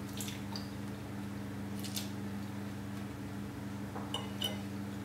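Someone chewing a mouthful of fried breakfast, with a few soft, wet mouth noises, over a steady low electrical hum. Near the end, two light clinks of cutlery against the plate.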